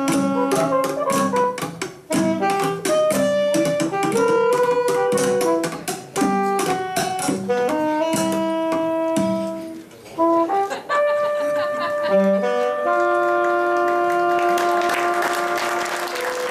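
Live band music led by saxophone and trumpet: fast runs of notes over drum hits, a brief break, then a long held closing chord. Applause starts to swell near the end.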